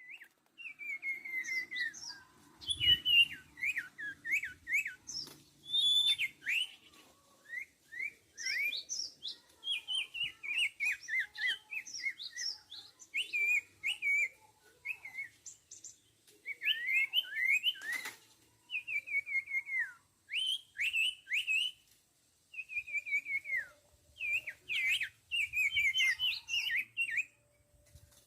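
Sirtu birds calling in rapid chattering series of short, downward-sliding chirps, phrase after phrase with short pauses between.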